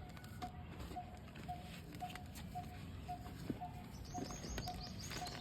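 Birds calling: a short piping note repeated evenly about twice a second, with a quick run of high chirps about four seconds in, over a steady low rumble and a few small crackles.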